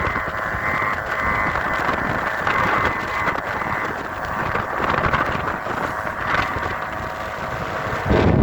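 Thai kite hummer (sanu), its taut bow string buzzing in a strong gusting wind: a loud, steady droning tone that swells and eases with the gusts. Wind rumbles on the microphone underneath.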